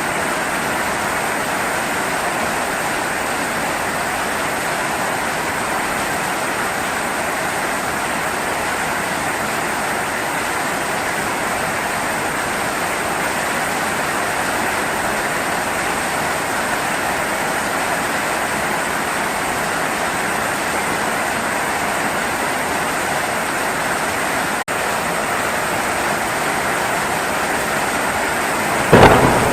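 Steady heavy rainfall, an even dense hiss, broken for a split second about three-quarters of the way through. Near the end a sudden loud crack of thunder.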